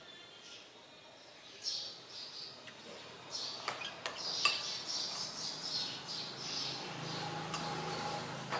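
Metal spoon clinking and scraping against a ceramic rice bowl, with a few sharp clinks around the middle, while small birds chirp repeatedly.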